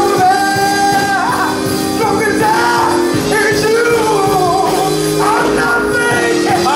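Church praise team singing gospel through microphones, several voices over a steady instrumental accompaniment.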